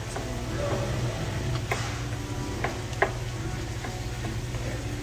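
Cooking sounds: a utensil tapping against a pot a few times, sharp clicks over a steady low hum.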